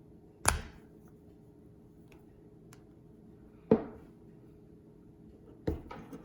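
Sharp clicks and taps of small phone-repair hand tools (spudger, pick) being handled: three strong ones about half a second, just under four and nearly six seconds in, the last followed by a few lighter ticks, over a faint steady hum.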